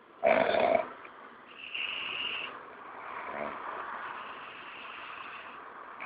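An animal snoring in its sleep: a short, loud snort about a quarter second in, followed by long, drawn-out breaths carrying a high whistle.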